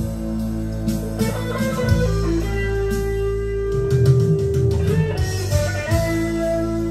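Guitar-led music with a bass line, played back through a valve (tube) power amplifier and floor-standing loudspeakers.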